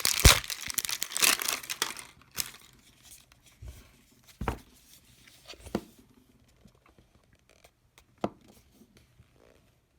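Plastic packaging being torn and crinkled, densest in the first two seconds, then a few separate knocks and small clicks as the wrapping is pulled away.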